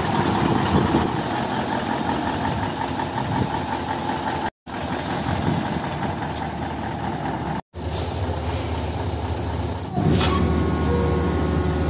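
Diesel engine of a Mitsubishi Fuso Super Great tractor unit idling steadily. The sound drops out briefly twice and is a little louder for the last couple of seconds.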